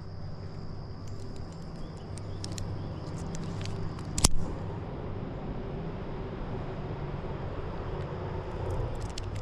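Steady low engine hum, like a vehicle running nearby, with one sharp knock about four seconds in and a faint, steady high-pitched insect-like buzz throughout.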